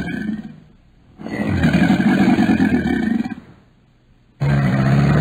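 An animal's deep, rasping calls, each about two seconds long: one fading out within the first second, another from about one to three and a half seconds in, and a third starting near the end.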